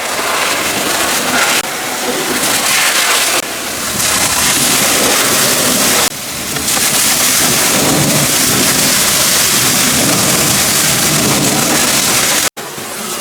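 High-pressure water spray from a pressure washer blasting against a mud-covered tractor: a loud, steady hiss that shifts abruptly a few times and cuts out for a moment near the end.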